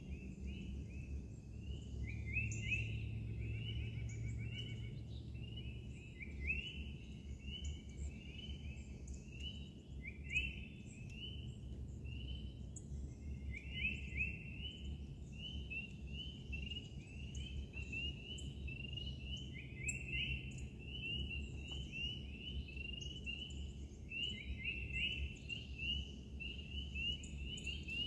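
Wild birds calling continuously in woodland, a dense run of short, high, rising chirps with no pause, over a low steady rumble.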